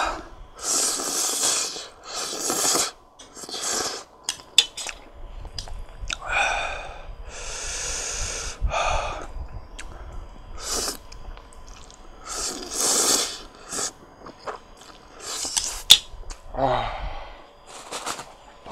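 A person slurping up mouthfuls of very spicy instant noodles, with repeated sharp, hissing breaths sucked and blown through the mouth against the chili burn. Near the end, a short falling pained vocal groan.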